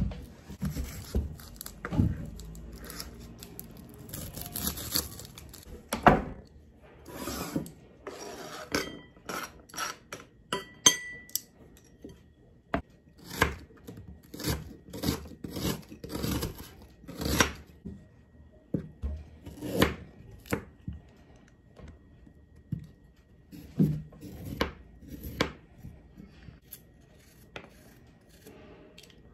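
Kitchen knife peeling and cutting an onion on a plastic cutting board: rubbing and scraping of the papery skin coming off, then separate knife knocks on the board about once or twice a second from about halfway through.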